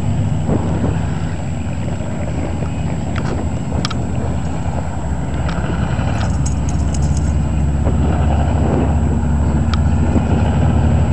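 Vehicle engine running steadily with a low rumble that grows a little louder in the last few seconds, with a few faint clicks over it.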